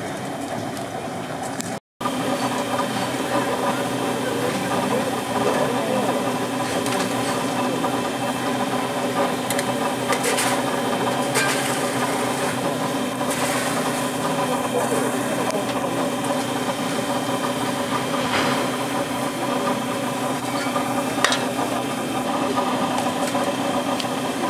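Many people talking over a steady mechanical hum, with a few sharp clicks.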